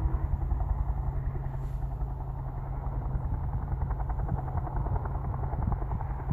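Helicopter flying low at a distance, its rotor beating as a steady low pulse that eases a little after the start.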